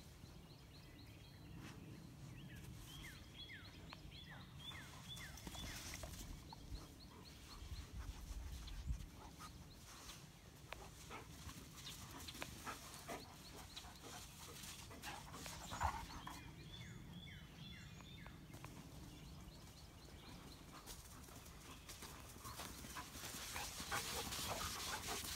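Dogs panting and scrabbling in loose dry dirt while digging, with a bird calling in runs of short chirps in the background a few seconds in and again past the middle.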